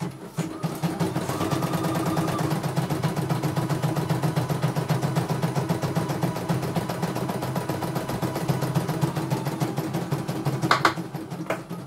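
CNY E900 computerized embroidery machine starting up and stitching: rapid, even needle strokes over a steady motor hum as the hoop carries the fabric under the needle. A brief sharper sound stands out near the end.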